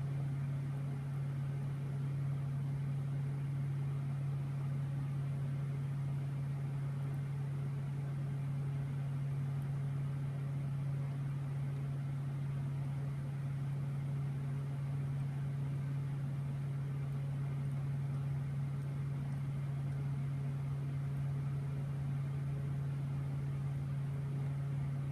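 A steady low hum that does not change, over a faint hiss.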